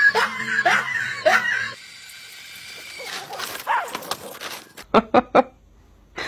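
Dogs vocalizing, ending in three short, sharp barks in quick succession about five seconds in. The first second and a half holds rhythmic music.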